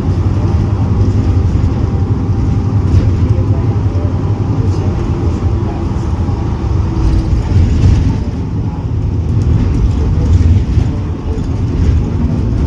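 Diesel engine of a Mercedes-Benz OF 1721 Bluetec 6 bus running with a loud, steady low drone.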